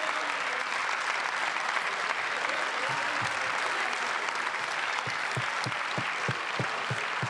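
Applause from the benches of a parliamentary chamber, a steady dense clapping. In the second half it is joined by a row of low knocks, about three a second.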